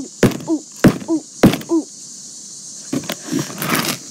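Hammer striking a box, four hard blows a little over half a second apart, each followed by a short grunt. Then the blows stop, with rustling near the end.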